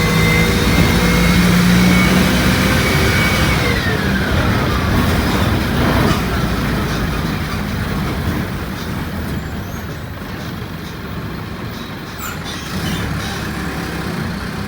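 Mercedes-Benz OF-1722M city bus running, with a high whine that holds steady and then falls in pitch about four seconds in as the bus slows. A short hiss comes about six seconds in, and the bus then runs on more quietly.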